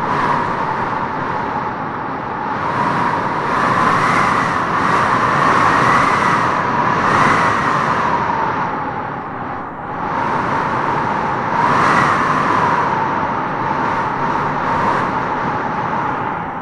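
Wind blowing in gusts: a steady rush with a howling tone that rises and falls, swelling several times and easing briefly about two-thirds of the way through.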